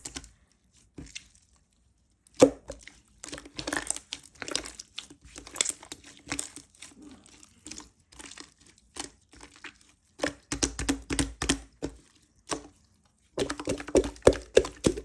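Crackly, crunchy material being squeezed and pulled apart by hand: clusters of short crackles, snaps and tearing sounds, pausing briefly twice.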